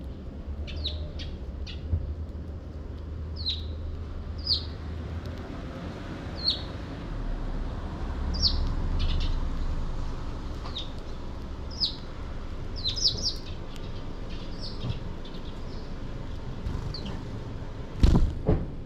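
Sparrows chirping: short, quickly falling chirps at irregular intervals over a steady low rumble. Near the end there is a brief loud burst of noise.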